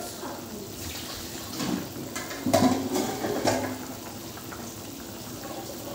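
Broth of potatoes and napa cabbage simmering and bubbling in a wok, with a few short, louder clatters about halfway through.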